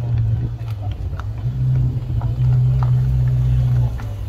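Ferrari 488 Spider's twin-turbo V8 running at low revs as the car pulls slowly away, a steady low engine note. The note rises a little and gets louder about halfway through, then eases off near the end.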